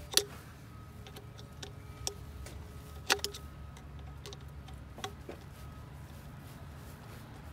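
A few sharp, irregularly spaced metallic clicks and taps of hand tools and hose-clamp hardware while an intake hose clamp is tightened. The two loudest come near the start and about three seconds in, over a low steady hum.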